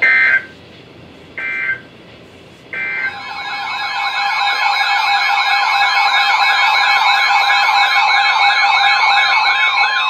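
Three short two-tone EAS data bursts (the SAME header), then several weather radios' alert alarms sounding together from about three seconds in: a loud, layered warbling that builds for a second or two and then holds. These alarms signal an incoming Severe Thunderstorm Warning.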